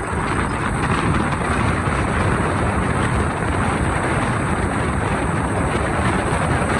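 Steady rush of wind and tyre noise from a Mercedes-Benz car driving along a paved road.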